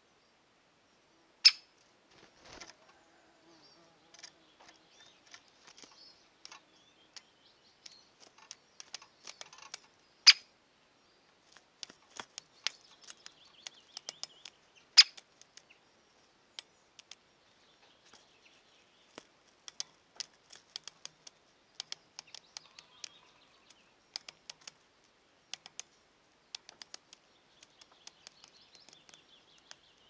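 Irregular sharp clicks and taps, a few per second, with three much louder snaps, over faint distant birdsong.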